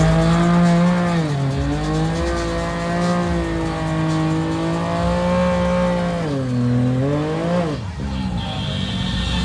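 ATV engine held at high revs, its pitch dipping briefly about a second in, sagging after six seconds, then climbing sharply and falling away near eight seconds before picking up again.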